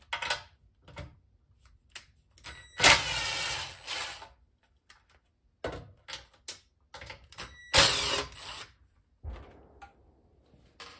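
Ratchet wrench with a 10 mm socket backing out bolts on a Predator 212 engine's gas tank, ratcheting in two runs of fast clicking about a second long each, with a few short knocks between.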